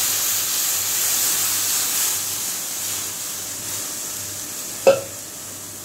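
Milk hissing as it is poured into a hot kadai, the hiss slowly dying away. A single sharp clink about five seconds in.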